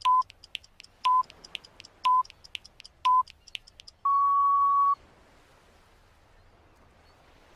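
Quiz countdown timer sound effect: rapid ticking with a short beep once a second, then a longer, slightly higher beep about four seconds in that signals time is up.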